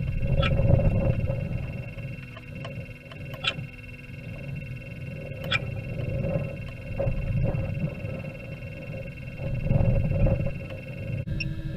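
Wind buffeting the rocket's onboard camera during its descent under parachute: uneven low rumbling gusts that swell and fade, with a few sharp clicks or taps and faint steady tones underneath.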